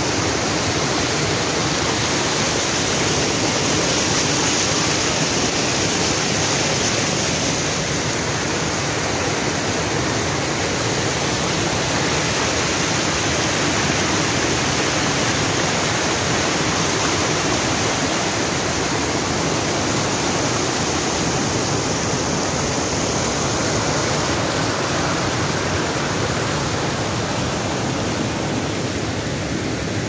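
White water of a small waterfall rushing steadily down a sloping rock slab, heard close up.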